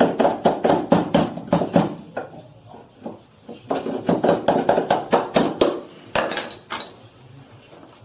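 Hammer tapping out the plastic mounting pin of a washing machine shock absorber: quick runs of sharp taps, about five a second, in two bursts with a short pause between and a couple of last taps after.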